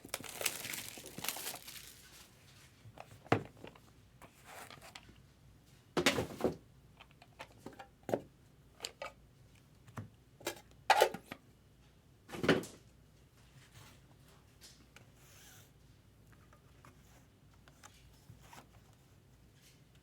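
A trading card box being opened and handled: rustling and tearing of packaging at the start, then scattered sharp knocks and taps of cardboard and card holders, settling to quiet handling in the second half.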